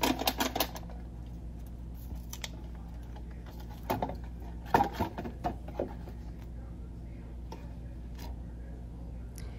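Paper and cardboard rustling and tapping from an empty corn muffin mix box and its paper inner bag being shaken out and handled. There is a quick run of taps at the start, another cluster about four to six seconds in, and a few faint ones near the end, over a steady low hum.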